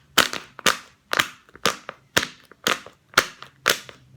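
A fidget toy snapped over and over, giving sharp clicking pops about twice a second in an even rhythm.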